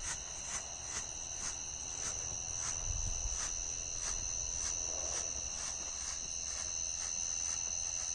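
Night insect chorus of crickets: a steady high trill with faint regular pulses about twice a second.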